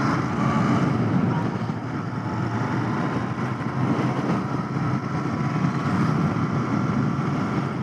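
Royal Enfield Continental GT 650's 648 cc parallel-twin engine running steadily while the motorcycle is ridden along a road, mixed with wind and road rush.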